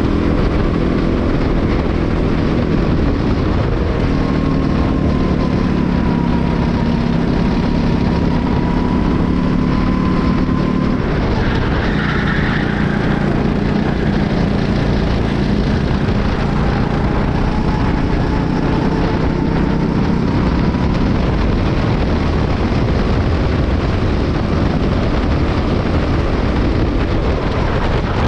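Racing kart's Honda four-stroke engine running hard, heard from an onboard camera on the kart, its note shifting in pitch as the kart speeds up and slows, with a brief break in the note about eleven seconds in. A steady rumble of wind and chassis runs under the engine.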